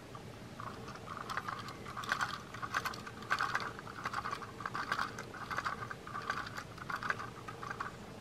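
Tomy Plarail rattling freight car rolled by hand, its loose plastic crate load bouncing and clattering. The sound comes in quick repeated bursts, about one and a half a second, starting about half a second in and stopping near the end.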